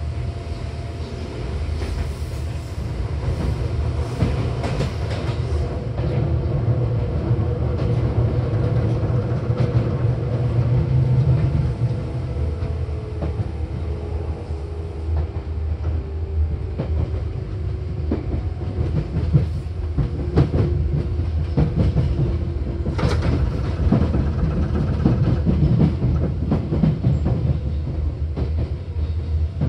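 Seibu 4000 series electric train running, heard from inside the car: a steady rumble of wheels on rail with a faint motor hum that drifts in pitch. Clusters of clacks from rail joints come a couple of seconds in and again around twenty seconds in.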